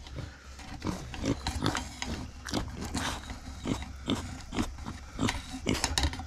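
Micro pig eating corn from a stainless steel bowl: quick, irregular chewing and mouth noises, several a second.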